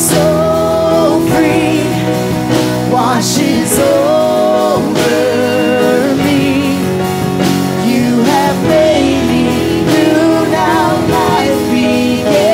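Live worship band playing a contemporary Christian song: acoustic and electric guitars and a drum kit with occasional cymbal crashes, and singing.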